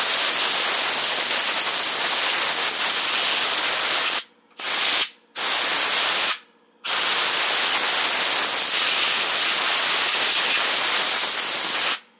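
Compressed air hissing loudly from a long blow-gun nozzle as it blows water out of a model steam engine's boiler and base to dry them. The air stops briefly three times, about four to seven seconds in, and cuts off just before the end.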